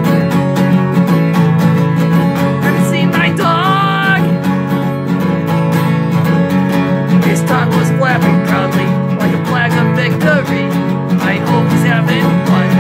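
Acoustic guitar strummed steadily and hard in a fast punk-style rhythm, with a man's voice singing over it at times, including a held note about three seconds in.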